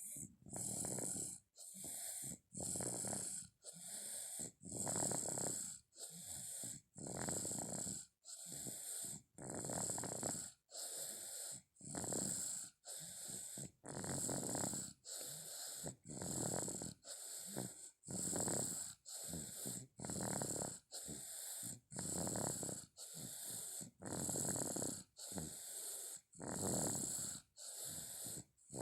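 A toddler snoring in a steady rhythm, with the louder snores coming about every two seconds.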